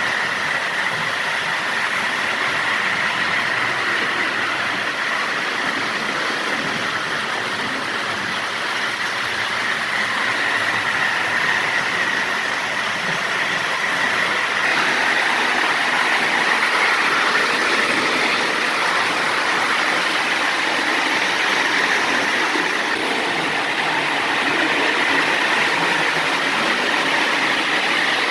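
Lionel 221 O-gauge toy steam locomotive running on its track pulling coaches: a steady motor whine with wheel noise on the rails, swelling and fading slightly as it goes round.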